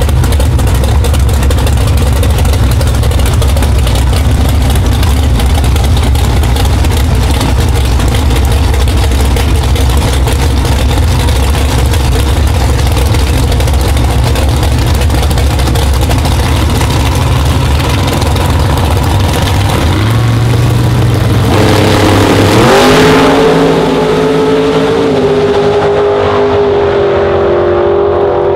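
Drag car engines running with a loud, steady low rumble; about three-quarters of the way in, the pitch climbs sharply as a drag car launches at full throttle, then holds high with a few small steps as it runs down the strip.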